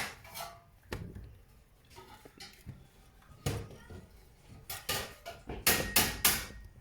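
Small hammer tapping on metal: a few scattered light clicks and a single knock, then a quick run of about six or seven sharp taps in the second half.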